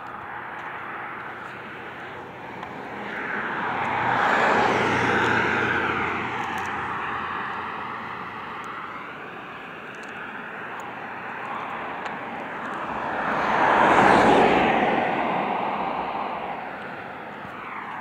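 Two vehicles passing by on a street, one after the other, each rising and fading over a few seconds; the second, passing near the end, is the louder.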